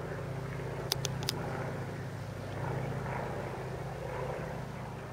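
Single-engine propeller aircraft flying overhead, its engine droning steadily and swelling and easing as it passes. A few sharp clicks come about a second in.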